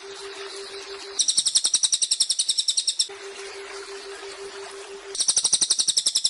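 Cililin bird singing two rapid, high trills of about ten notes a second, each lasting about two seconds, the second starting about five seconds in. Between them runs a steady hiss with a low, faintly pulsing drone.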